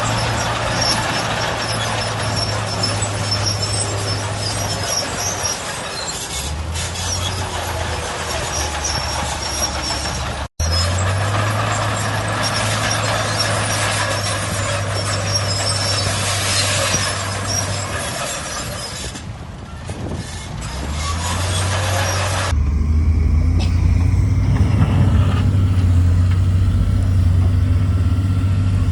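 Heavy diesel earthmoving machinery working: a deep engine note that steps up and down in pitch under a broad hiss. The sound cuts out for a moment about ten seconds in, and several seconds before the end the hiss falls away, leaving a louder, lower engine drone.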